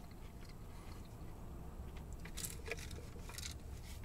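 Faint, wet chewing and mouth sounds of someone eating, with a few soft smacks about two and a half and three and a half seconds in, over a low steady rumble.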